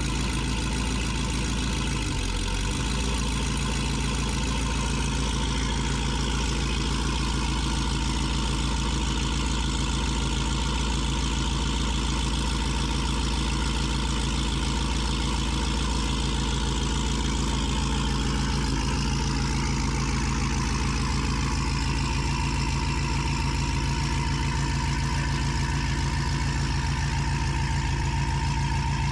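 Car engine running steadily, a low, even drone that holds the same pitch.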